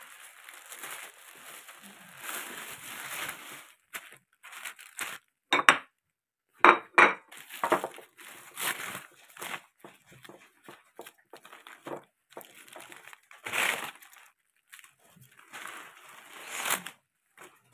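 Thin plastic carrier bags and paper food wrapping crinkling and rustling as they are handled and opened, in irregular bursts with a few sharper, louder snaps and knocks.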